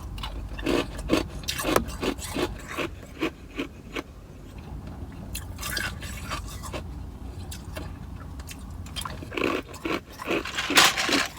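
Ice cubes being crunched and chewed: quick crisp crunches a few times a second in a run near the start, a calmer stretch in the middle, then another run of crunching near the end.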